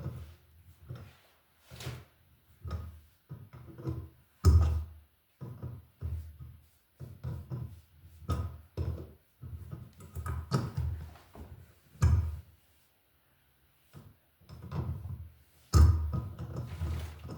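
Irregular knocks and clunks, a dozen or so with short gaps, from a brass wall light being forced round on its mounting bracket, the threads binding on old paint.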